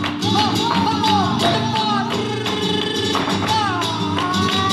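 Live flamenco music: acoustic guitar with a violin melody gliding and bending above it, and sharp rhythmic hand-clapping (palmas) along with the dancer's strikes.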